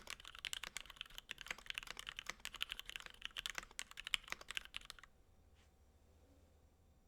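Typing on a mechanical keyboard with lubed Gateron Black linear switches with milky tops and PBT keycaps, in an acrylic Tofu65 case with aluminium plate and foam: a fast, dense run of keystrokes that stops about five seconds in.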